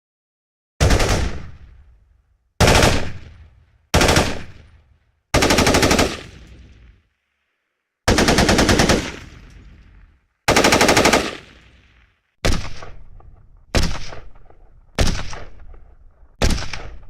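AK-47 rifle gunfire: ten separate bursts with short silences between, each dying away in an echoing tail. The fourth, fifth and sixth are longer strings of rapid automatic fire; the rest are brief shots or short bursts.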